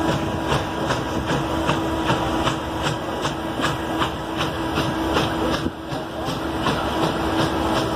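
Norfolk and Western J-class 611 steam locomotive working slowly, its exhaust beating in an even rhythm of about three beats a second over a steady hum and the rumble of the moving train.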